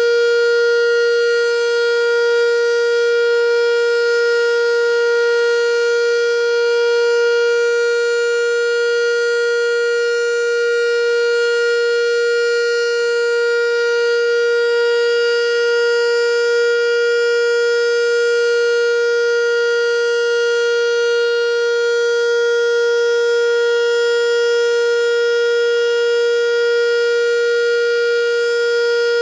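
ASC T-112 outdoor warning siren sounding its full alert signal: one loud, steady tone held at a single pitch without rising or falling.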